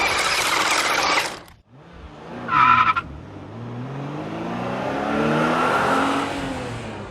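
Car sound effects: a long tire screech that cuts off about a second in, a short high squeal, then a car engine revving up and falling away in pitch.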